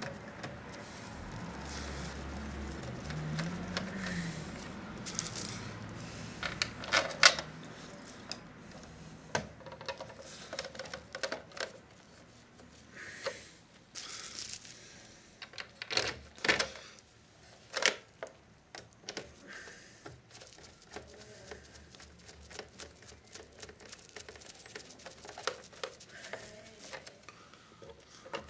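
Irregular small clicks, taps and knocks of hands and a screwdriver working on the plastic case of a Philips D6350 cassette recorder, with case screws being turned back in. The sharpest knocks come about 7 seconds in and again around 16 to 18 seconds.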